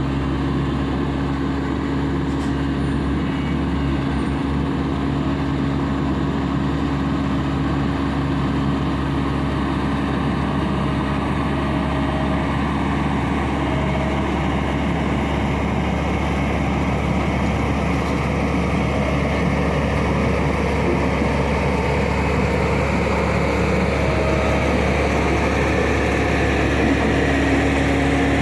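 Heavy diesel construction machinery running steadily, a continuous low engine drone.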